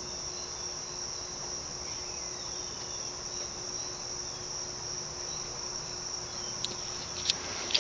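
SMC Laguna KA36 industrial ceiling fan running steadily below full speed on its variable-speed control, with the hum that its solid-state speed control gives the motor. A steady high-pitched whine sits above the hum.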